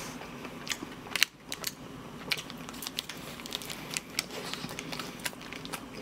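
Close-miked chewing of a mozzarella toast: a run of sharp, wet mouth clicks and crackles, with one louder snap about a second in.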